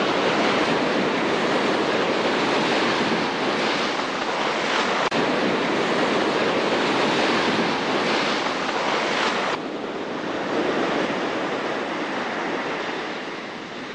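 Ocean surf breaking and washing up the beach, a steady rush of waves and water. The sound drops abruptly a little over two-thirds of the way through.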